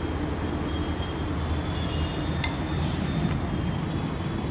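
Metal spoon stirring a coarse ground yellow-pea mixture in a ceramic bowl, with one sharp clink of spoon against bowl about two and a half seconds in, over a steady low background rumble.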